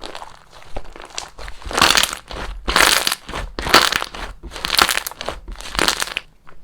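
Crunchy slime being squeezed and pressed by hand, giving a run of loud crunching crackles about once a second, with quieter crackling before them.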